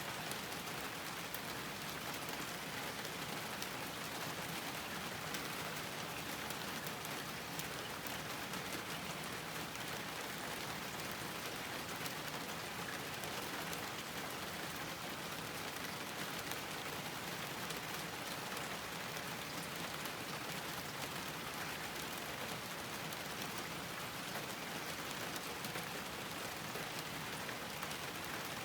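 Steady rain falling on a garden, an even hiss of countless drops with faint individual drop ticks, and no change in strength.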